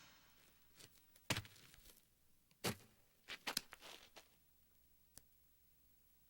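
Sparse animated-film sound effects: a few short, soft rustles and taps, a quick run of them a little past the middle, then a single small click.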